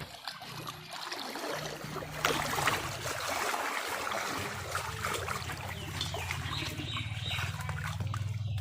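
Shallow water splashing and trickling, with scattered small knocks. A low, steady motor hum comes in about halfway through.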